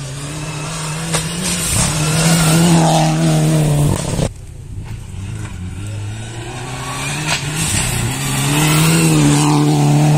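Rally car on a dirt sprint stage, engine at full throttle with its pitch climbing. The sound drops suddenly about four seconds in, then climbs again and is loudest as the car passes close by near the end, throwing up dust.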